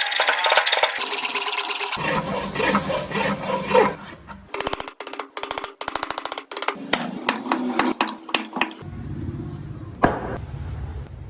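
Wood being worked with tools in a run of rough rubbing, rasping and sawing strokes, some in quick regular series. The sound changes abruptly several times, and a low steady hum comes in near the end.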